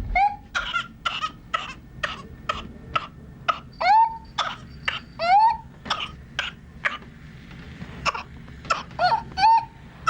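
Whooping cough (pertussis) paroxysm in a child: a fast run of short coughs, about three a second, broken by long high-pitched whoops as breath is dragged back in. This happens twice near the middle and again near the end.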